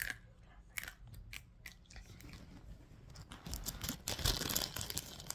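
Close biting and chewing sounds: a run of small sharp crunchy clicks at the mouth, then louder rustling from handling the phone about three and a half seconds in.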